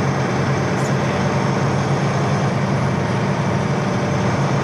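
Semi truck's diesel engine running steadily at low speed, a low drone heard from inside the cab with road and cab noise.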